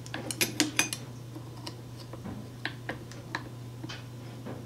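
Small metallic clicks and clinks as a metal blade is fitted into the tool-free blade clamp of a Hercules brushless reciprocating saw: a quick cluster of clicks in the first second, then a few scattered ones. A steady low hum runs underneath.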